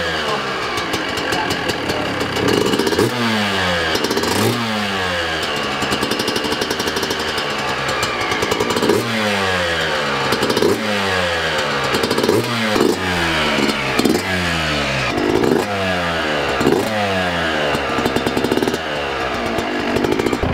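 Yamaha YZ125 single-cylinder two-stroke dirt bike engine running on its first start after a complete rebuild, revved again and again, each blip rising quickly and falling back toward idle.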